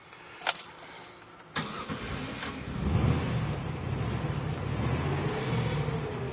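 Van engine cranked by the starter and catching, then running with the revs rising and falling near the end as the throttle is worked. It is being kept running on the gas because it stalls as soon as the throttle is released at idle.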